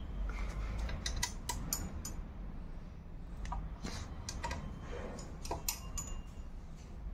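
A 5 mm Allen key working a bolt on a motorcycle's front fork, making a string of light, irregular metallic clicks and ticks over a steady low rumble.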